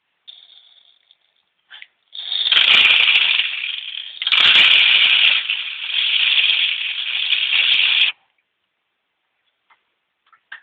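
6 mm beads pouring out of a glass jar into a toy cement mixer lorry's plastic hopper and drum: a dense rattling rush of little beads. It starts about two seconds in, surges twice and stops abruptly near the end.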